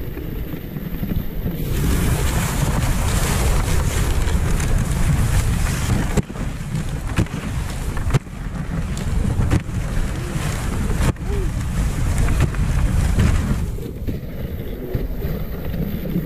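Dog sled gliding over a packed snow trail: the runners hiss and rattle on the snow while wind buffets the microphone in a steady low rumble. The hiss rises about a second and a half in and eases off near the end, with a few sharp knocks from the sled along the way.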